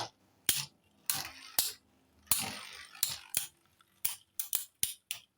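3D-printed Beyblade spinning tops clashing and scraping in a stadium: single sharp clicks, two longer grinding scrapes, then a quick run of clicks near the end.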